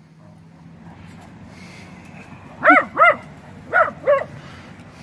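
A small dog barking, four short high-pitched barks in two quick pairs, the first pair a little under three seconds in and the second about a second later.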